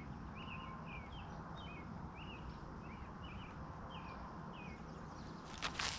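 A songbird singing a quick series of short chirping notes, about a dozen over four or five seconds, faint over low outdoor background noise. A brief sharp noise comes near the end.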